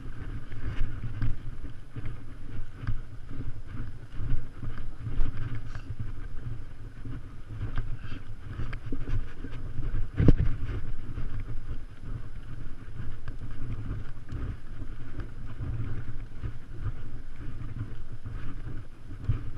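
Wind buffeting and handling rumble on a handheld GoPro Hero 3 jostled by a horse's walk, with scattered knocks and one louder knock about ten seconds in.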